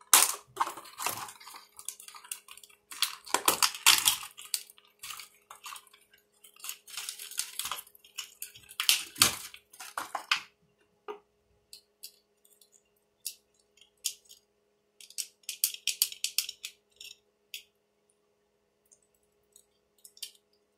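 Plastic toy packaging crinkling and rustling as it is cut and pulled open, dense for the first half. Then sparse small plastic clicks and one shorter crinkle as the toy's plastic parts are handled.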